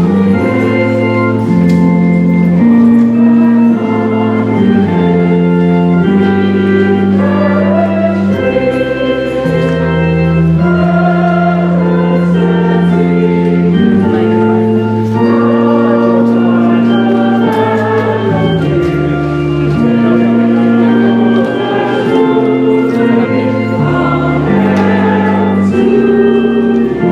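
Organ playing slow, held chords that change every second or two, with voices singing along in places.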